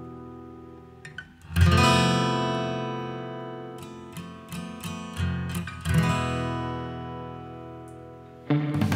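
Background music: acoustic guitar chords strummed and left to ring out, with a few single picked notes between them and a louder passage starting near the end.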